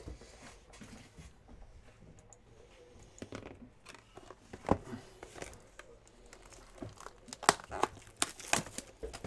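Plastic shrink wrap on a sealed box of trading cards crinkling as the box is handled and the wrap is torn open: scattered sharp crackles, sparse at first and much busier about seven seconds in.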